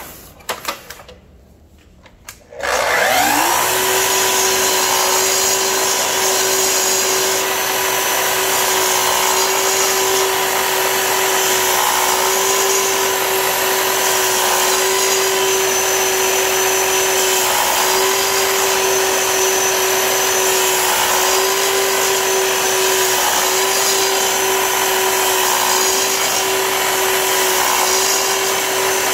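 Festool sliding compound miter saw motor starting about two and a half seconds in, rising quickly in pitch and then running at a steady pitch while it cuts a groove in a small wooden stick.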